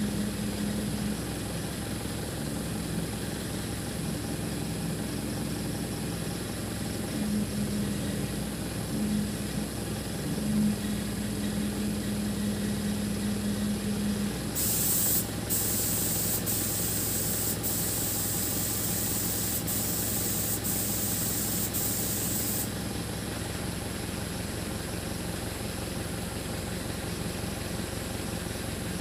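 Engine of a truck-mounted boom lift idling steadily. About halfway through a loud hiss starts, breaks off briefly several times, and stops after about eight seconds.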